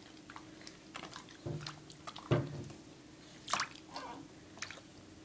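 Small wet splashes, drips and taps as a toddler's hands paddle in water in a stainless steel dog bowl, in scattered irregular bursts with the loudest about three and a half seconds in.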